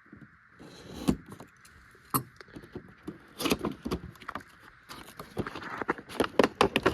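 Action-figure box of cardboard and plastic being handled and pried open: scattered sharp clicks and crinkling rustles, growing busier and louder toward the end.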